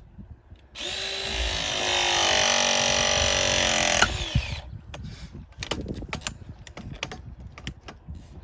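Power drill running for about three seconds: the motor whine climbs in pitch, holds steady, then winds down when the trigger is released. A few light clicks and knocks follow.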